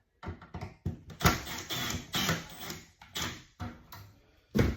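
Irregular knocks, clicks and scraping from hand work on a residential breaker panel as its wires are pulled out, with a sharp knock about a second and a half in and another near the end.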